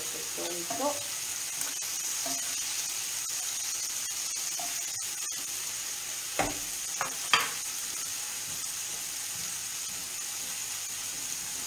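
Pieces of boiled octopus tentacle frying in oil in a pan, a steady sizzle. A little past halfway come three sharp knocks as the pan is handled.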